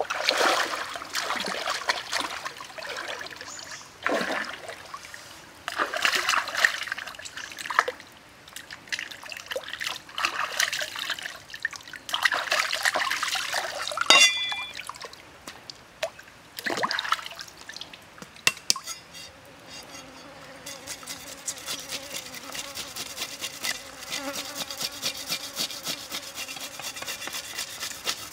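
Water splashing and sloshing as a whole fish is rinsed by hand in a shallow stream. In the last third this gives way to a knife scraping the fish's scales off in quick repeated strokes.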